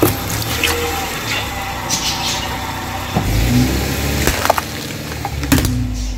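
Car engine running slowly while its tyre rolls over and crushes packaging: a juice box bursting, then a snack tube being flattened, giving scattered cracks and crunches over the steady low engine hum.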